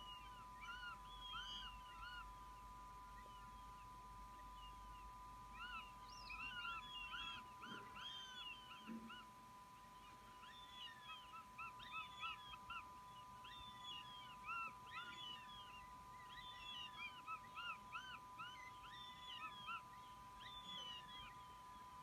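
Young northern goshawks at the nest giving repeated thin, arched begging calls, several a second, growing more frequent about six seconds in as they compete for food. A steady faint tone runs underneath.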